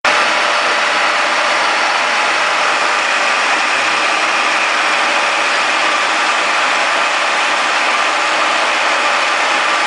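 Conventional milling machine running steadily, its spindle and gearbox turning a friction stir welding tool, with an even mechanical whir and hum.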